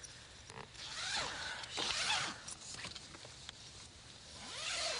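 Tent fabric rustling and rasping as someone moves about inside, in two stretches: about a second in, and again near the end.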